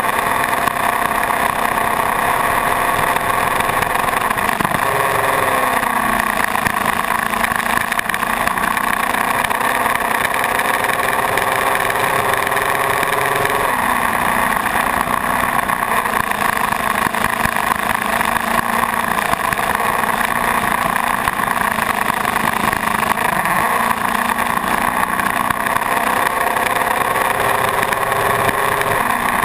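Suzuki GS500 motorcycle's parallel-twin engine running at road speed under a steady rush of wind and road noise, its engine note shifting pitch several times as the rider changes gear or throttle.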